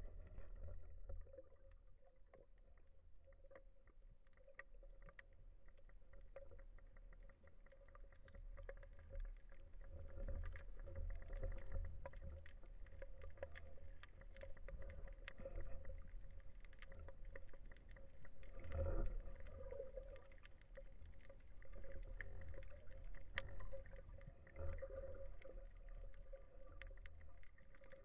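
Underwater ambience heard from a diver's camera: a low rumble of moving water with many faint scattered clicks and a steady hum, swelling a few times.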